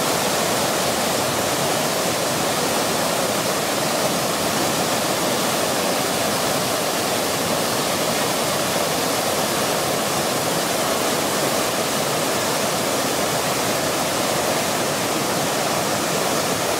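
Water from a large fountain cascade pouring steadily as a broad curtain into a stone basin, with smaller jets splashing into the pool: a constant, even rush.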